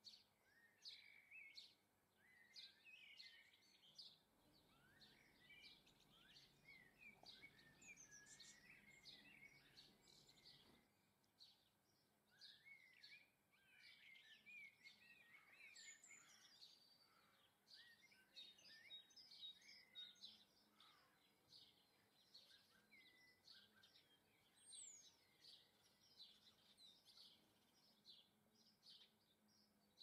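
Small garden songbirds chirping and twittering faintly: a steady scatter of short, high chirps, with a busier run of quick rising and falling twitter through the first half.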